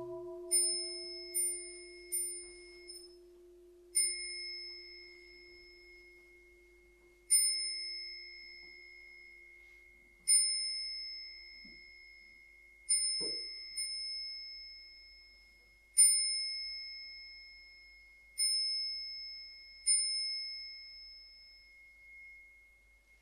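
A small, high-pitched metal bowl bell of the kind used in Buddhist services is struck about a dozen times: four quick strikes at first, then single strikes a few seconds apart, each ringing clear and fading. Under the first strikes, the low hum of a larger bowl bell, struck just before, dies away.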